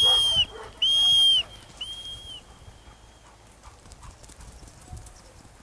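Three short, steady, high-pitched blasts of a dog-training whistle signalling a young pointer in the field, the third blast fainter than the first two.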